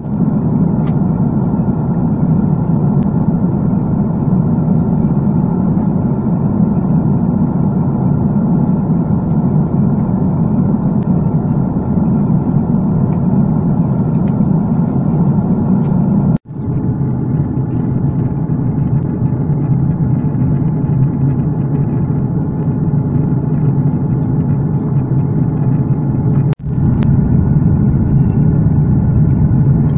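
An engine running steadily, a loud low drone, broken by two brief dropouts: one about halfway through and one near the end.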